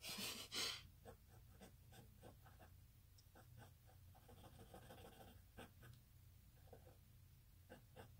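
Faint scratching of a pencil on paper, many short sketching strokes. About the first second holds a louder rustle as the sheet of paper is shifted on the table.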